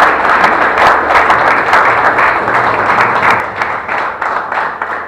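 Audience applause: many people clapping together, thinning out toward the end.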